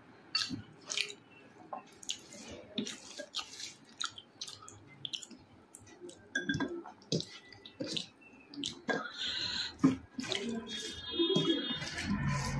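Close-miked eating: wet, irregular chewing, lip smacks and squelches of rice mixed with chicken gravy. Music comes in near the end.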